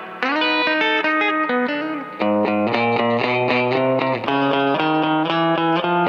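Fender Coronado II electric guitar played through a Keeley Compressor Plus pedal into a tube amp, a country-style passage of chords and single notes with evenly held, sustained notes. New chords strike just after the start and again about two seconds in.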